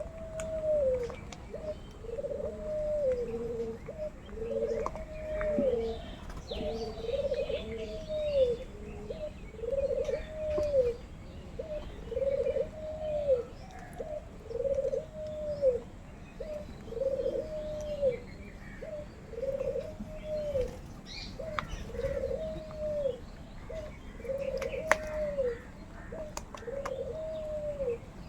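A bird calling over and over at a steady pace, one low arched note that rises and falls, about every second and a half.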